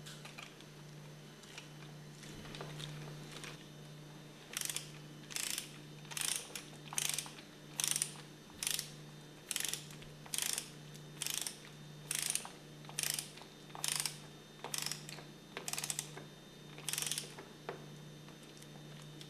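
Ratchet wrench clicking through about fifteen short, even strokes, a little more than one a second, tightening a steel bolt through the diaphragm into an aluminium pump piston toward its torque setting. A steady low hum runs underneath.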